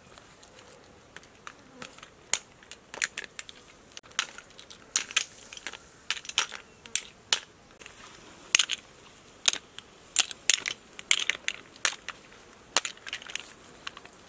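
Roasted cockle shells clicking and clacking against one another and against the stone slab as they are picked up and dropped into a woven bamboo basket: many sharp, irregular clicks, starting about two seconds in.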